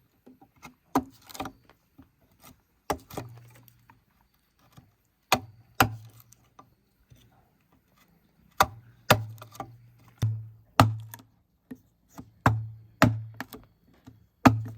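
Repeated blows struck into a timber beam during carpentry, each a sharp knock followed by a short low ring from the wood. They come singly at first, then in quicker runs about half a second apart in the second half.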